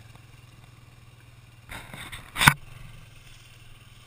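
ATV engine idling with a steady low hum. About two and a half seconds in, a brief rush of noise ends in a sharp knock.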